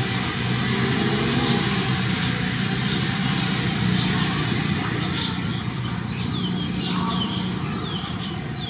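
A steady low engine-like drone runs throughout. From about halfway through, short high chirps, each falling in pitch, repeat several times over it.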